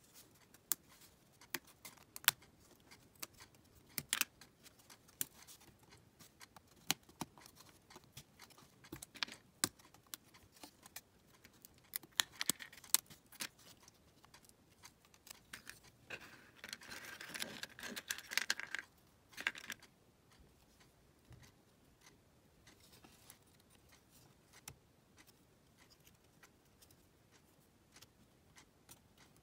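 Thin laser-cut plywood puzzle pieces handled, pressed out of their sheet and fitted together: scattered light clicks and taps of wood, with a denser rasping stretch of about three seconds a little past halfway.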